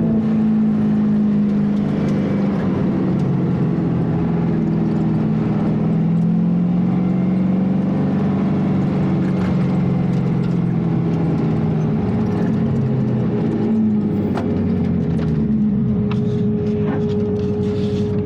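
Porsche 928's V8 engine running at low, steady revs as the car rolls slowly, heard from inside the cabin, with a few sharp clicks near the end.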